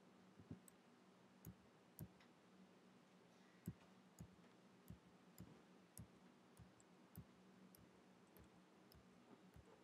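Faint mouse clicks, about fifteen of them spaced half a second to a second apart, over a low steady hum.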